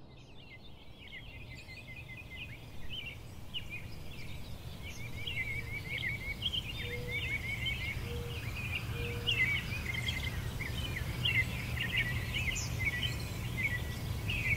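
Many small birds chirping and twittering over a low steady background rumble, fading in over the first few seconds; three short low notes about a second apart sound in the middle.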